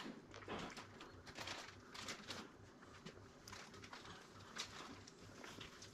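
Quiet room tone in a café: a faint low hum with a few faint, short clicks and knocks about a second apart.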